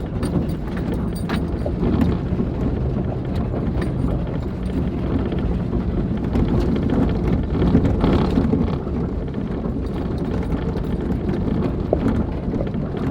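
Jeep driving slowly over a rough, muddy dirt trail: steady low engine sound inside the open cabin, with scattered knocks and rattles from the bumps.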